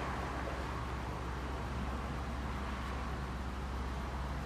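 Steady low engine hum of a vehicle idling, even and unchanging.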